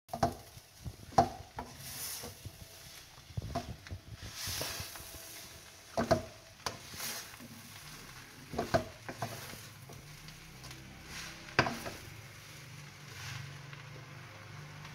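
Spatula scraping and knocking against a wok as srundeng, grated coconut with meat, is stirred and dry-fried, over a faint sizzle. The knocks come irregularly, the sharpest about a second in, about six seconds in and near twelve seconds.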